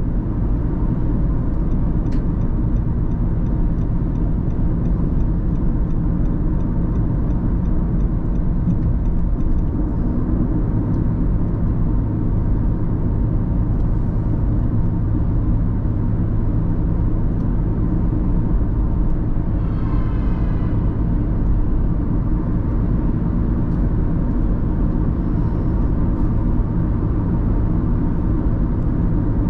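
Car driving along, a steady low rumble of engine and road noise. Faint ticking comes through in the first third, and a short pitched tone sounds about two-thirds of the way in.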